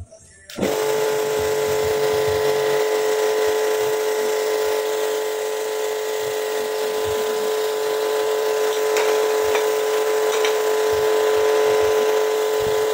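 Small motor of the Energy Cube machine running at a steady speed under test, a constant even hum that starts about half a second in.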